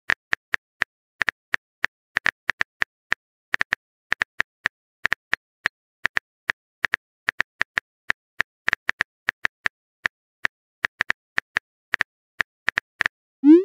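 Phone keyboard typing sound effect: short, sharp clicks at an uneven pace, about four or five a second, as a text message is typed out.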